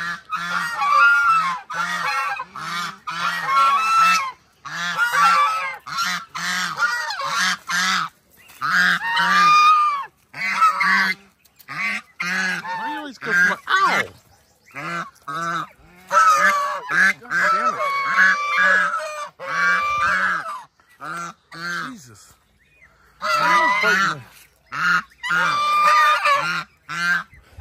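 Several domestic geese honking over and over in quick runs of short calls, with a couple of brief pauses.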